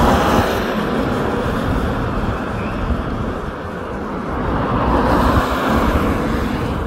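Road traffic on a wet road: tyre hiss and engine noise of cars going by, swelling about five seconds in as a car passes.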